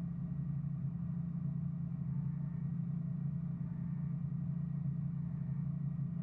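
Truck engine idling steadily with a low, even hum while the rig stands still.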